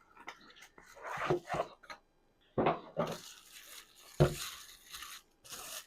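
Handling of a plastic dog water bottle and its packaging as it is opened: rustling and scattered clicks, with two sharp plastic clacks about two and a half and four seconds in.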